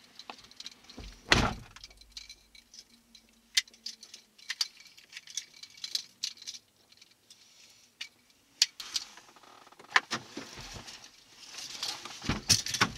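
Handling noises in a car: a heavy thump about a second in, then scattered clicks and rattles, with denser rustling near the end.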